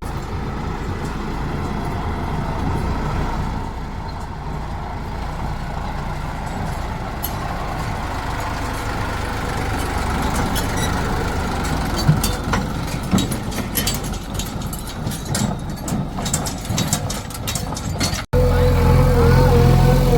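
Diesel engine of heavy machinery running steadily, with scattered clanks and knocks in the second half. Near the end the sound cuts abruptly to a louder, steady hum with a held tone.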